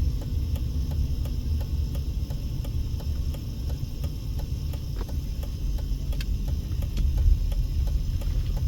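Low rumble of a car's engine and road noise inside the cabin, with the turn signal ticking steadily over it.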